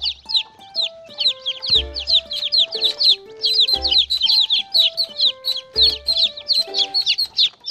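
Many baby chicks peeping rapidly and continuously, each peep a short high downward chirp. Under them runs background music with a simple stepping melody and a low bass note about every two seconds.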